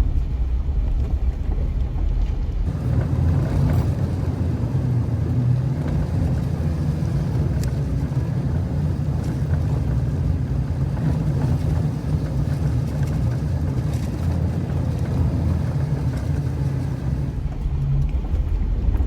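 Jeep Wrangler driving up a dirt trail: a steady rumble of engine and tyres, getting fuller and louder about three seconds in and easing off again near the end.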